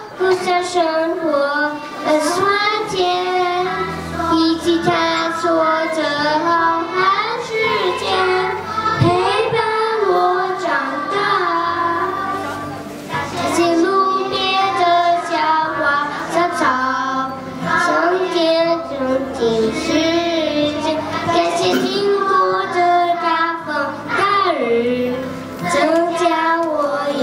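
A group of children singing a slow song together into microphones over a recorded backing track with a steady bass line.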